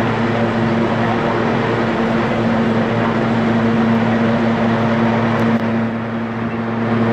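Military helicopter running on the ground with its rotors turning before lift-off: a steady turbine-and-rotor drone with a constant low hum, dipping slightly near the end.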